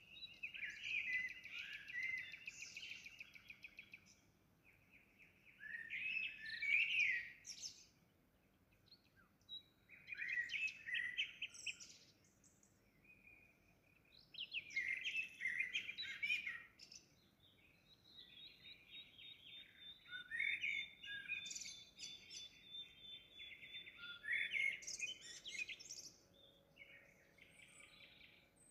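Songbirds singing in short, intricate phrases of two to three seconds each, repeated every few seconds, with a thin, steady high note held for several seconds midway.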